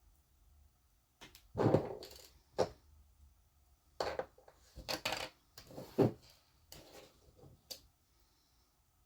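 Small metal parts and hand tools clicking and clattering on a workbench in two bursts of handling, as an RC car's front differential is taken apart to remove its bearing shims.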